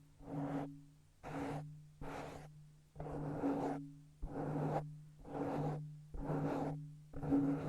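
Hands making close-up ASMR sounds: rhythmic swishing strokes, about one a second, each starting sharply and fading away, over a steady low hum.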